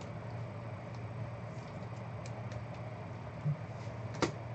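Steady low hum of room noise, with one sharp click near the end as hands pick up and handle trading cards.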